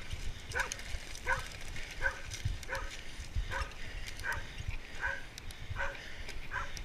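A dog barking repeatedly at an even pace, about nine barks, one every three-quarters of a second.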